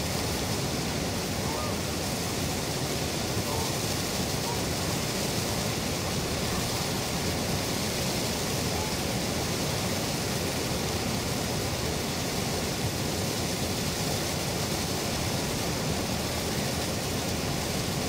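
Steady, even rushing of water pouring over a dam.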